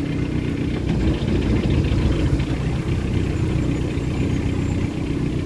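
Narrowboat engine running steadily at tick over, giving the boat just a little forward speed.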